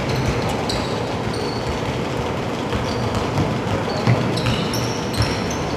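Sneakers squeaking on a hardwood basketball court during play, with a ball bouncing. The short, high squeaks come in a cluster in the second half.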